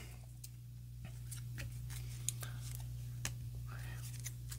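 Faint, scattered clicks and light rustling of cards and paper being handled, over a steady low hum.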